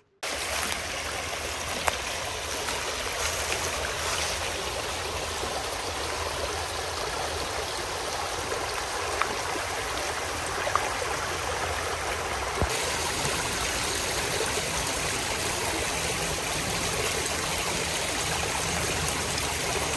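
Mountain creek water rushing steadily over rocks.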